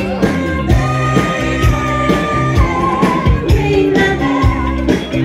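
Loud recorded music with a singer and a steady drum beat, played over a sound system's speakers.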